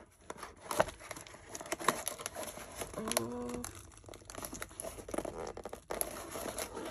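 Cardboard shipping box being handled and pried open: rustling, scraping and tearing of cardboard and packing tape, with scattered small knocks and clicks.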